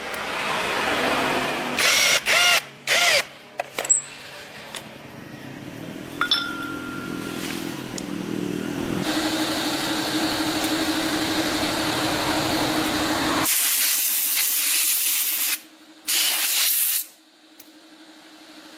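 Workshop tool noise: a changing hiss, broken by several short, loud bursts of a power tool a couple of seconds in and again near the end.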